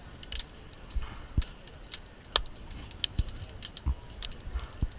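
Scattered light clicks and knocks at an uneven pace, a couple of them sharper, over low thumps.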